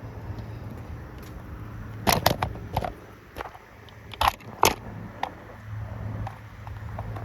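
Handling noise as the camera is repositioned: a few sharp knocks and clicks about two seconds in and again near the middle, over a steady low hum.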